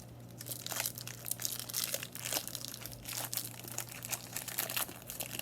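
Foil wrapper of a Pokémon booster pack crinkling and tearing as it is opened and handled by hand, in irregular crackles.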